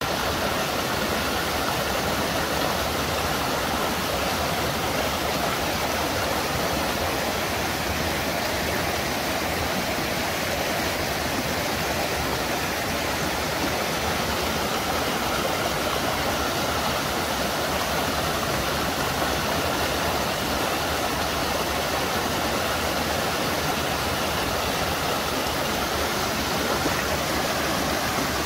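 Waterfall and river cascades rushing over rock ledges, a steady even noise.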